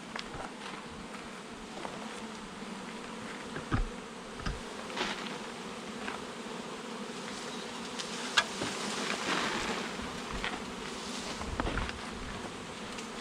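A swarm of honey bees buzzing steadily, with scattered knocks and snaps and a brief rustle; the loudest knock is about eight seconds in.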